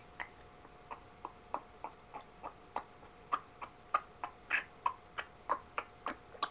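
Imitated horse hoofbeats for a trot: an even run of light clicks, about three a second, growing louder in the second half.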